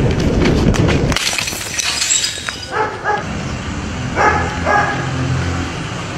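A dog barking in quick pairs, twice, about three and four and a half seconds in. A rough rustling noise fills the first second, and a low steady hum runs under the barks.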